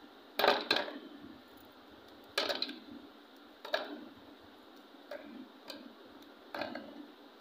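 Oreo biscuits snapped by hand and dropped into the plastic bowl of a manual food chopper: about six light clicks and clatters a second or so apart.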